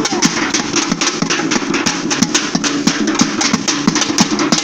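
Street carnival bloco percussion playing: drums and other percussion struck in a fast, steady rhythm, with a low pitched instrument or voices under it.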